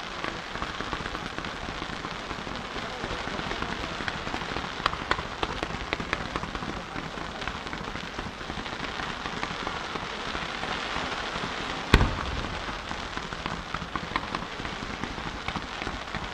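Fireworks display: a dense, continuous crackle of many small pops from crackling shells, with one sharper bang about twelve seconds in.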